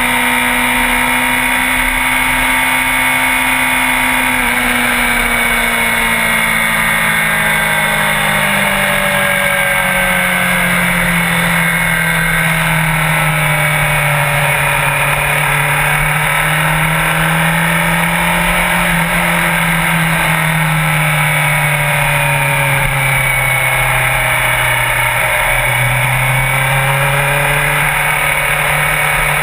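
Sport motorcycle engine running at varying throttle, its pitch sliding slowly down and back up several times, over a steady hiss.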